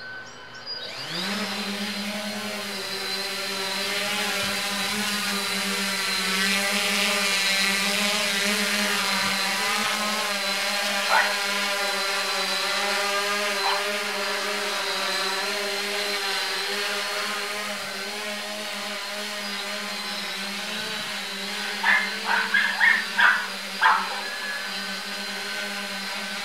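3DR Solo quadcopter's motors and propellers spinning up about a second in, rising in pitch, then a steady multi-tone whine as it takes off, flies and hovers. A quick run of short sharp sounds comes near the end.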